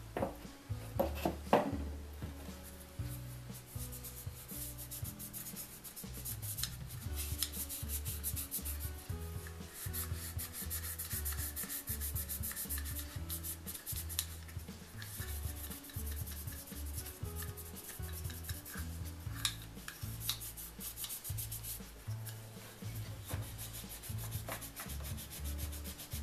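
Cloth rubbing wax over the light housing of a Singer 66 sewing machine in quick repeated strokes, cleaning it, with a few sharp knocks of the housing being handled about a second in.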